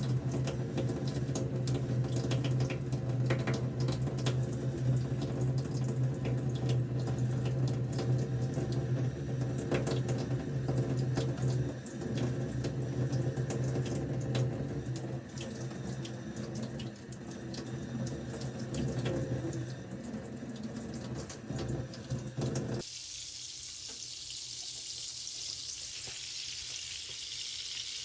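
Tap water running steadily into a sink. About 23 seconds in it cuts to the steady sizzle of razor clams frying in margarine in a pan.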